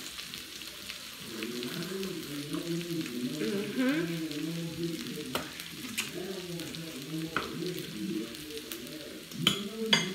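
Noodles, dumplings and rice cakes frying in oil on a hot griddle, a steady sizzle with a low wavering hum over it and a few sharp pops, two of them loud near the end.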